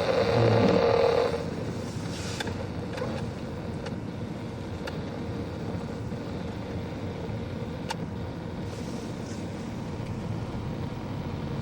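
A car driving on a snowy road, heard from inside the cabin: steady engine and road noise. A louder rush in the first second or so dies back to the steady noise, and there are a few faint clicks.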